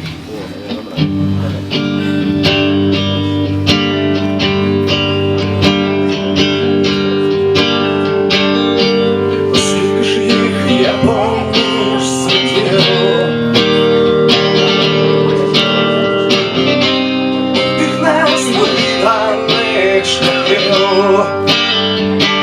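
A live band playing the instrumental introduction of a song, led by strummed guitar chords, starting about a second in.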